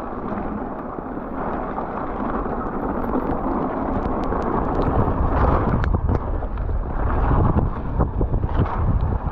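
Wind rushing over the microphone while a mountain bike is ridden down a trail, with the rumble of tyres on the ground and scattered sharp clicks and rattles from the bike.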